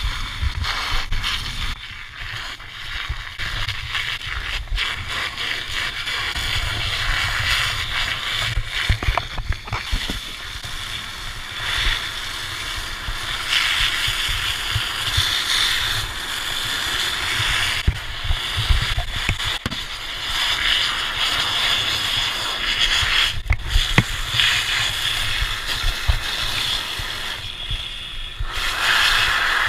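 Fire hose jet spraying water into a burning car, a steady hiss and splatter of water on hot metal and upholstery, with a low rumble underneath and a few knocks.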